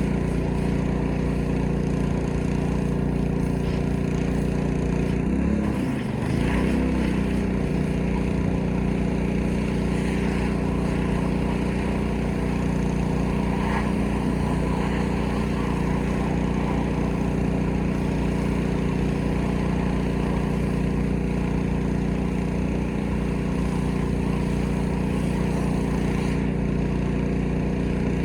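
Small petrol engine of a pressure washer running steadily, its pitch dipping briefly and recovering about six seconds in.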